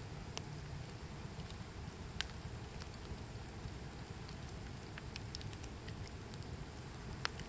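Outdoor ambience: a steady low rumble with scattered short, sharp crackles and clicks at irregular intervals.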